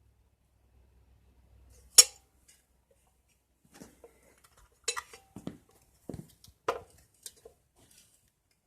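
Metal objects being handled. One sharp clank about two seconds in, then a run of lighter clinks and knocks.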